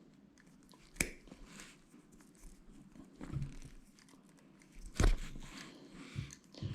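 Wire cutters snipping through ESC power wire: two sharp crunching snips about four seconds apart, with quieter handling clicks and rustling between.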